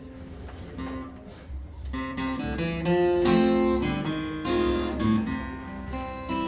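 Acoustic guitar playing a cowboy song's introduction, softly picked at first, then louder strummed chords from about two seconds in.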